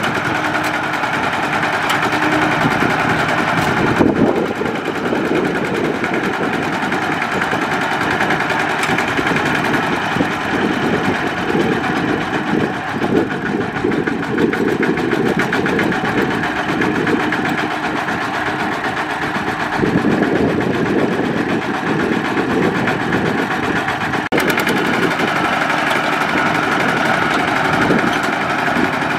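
Kubota RT120 single-cylinder diesel engine of a two-wheel walking tractor, running continuously under load as it tries to drag a trailer stuck in deep mud. Its note shifts a few times, about 4 seconds in and again around 20 seconds in.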